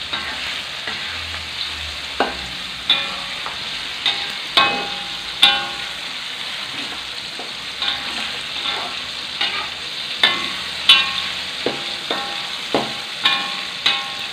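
Chillies, shallots, garlic and tomato sizzling in hot oil in a wok, with a spatula stirring and knocking against the wok in repeated sharp strikes that ring briefly. The chillies and shallots are nearly cooked, the base for sambal belacan.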